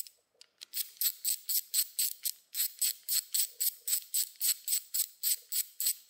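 Hand ratchet clicking in quick, even strokes, about four or five clicks a second, as it runs down a camshaft bearing cap bolt on a Toyota 2JZ cylinder head. The clicking pauses briefly just after the start and again about two and a half seconds in.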